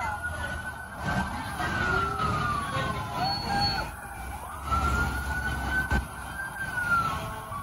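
Several emergency-vehicle sirens wailing, overlapping as their pitch slowly rises and falls, over the sound of passing vehicle engines.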